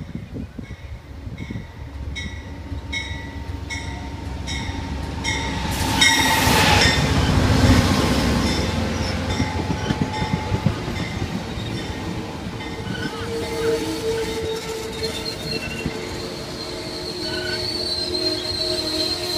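GE P42DC diesel locomotive approaching and passing, loudest about six to eight seconds in, followed by Amfleet passenger cars rolling by with steady wheel squeal as the train slows into the station. A regular ringing, about twice a second, sounds during the approach.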